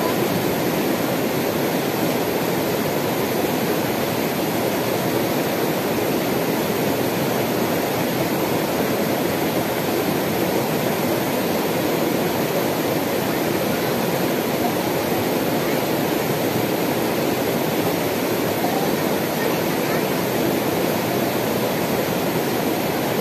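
Steady rush of a shallow mountain river tumbling over rocks and small rapids.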